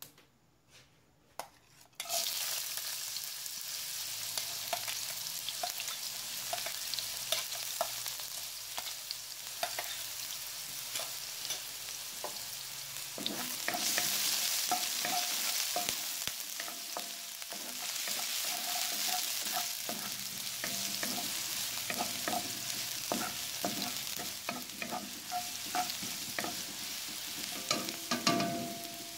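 Diced celery sizzling in hot oil in a nonstick wok. The sizzle starts suddenly about two seconds in, and a wooden spatula stirring the celery adds frequent scrapes and taps.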